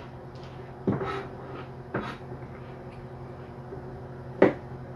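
Handling noise from a cheap handheld microphone being pulled apart by hand: a knock about a second in, another at two seconds, then a sharp, loud click near the end.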